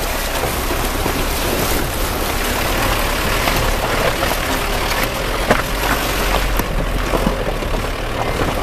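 Mahindra Bolero SUV driving over a rough, rocky dirt road: the engine runs under a steady rumble of tyres on loose stone, with the body rattling and frequent short knocks and clatters. The sharpest knock comes about five and a half seconds in.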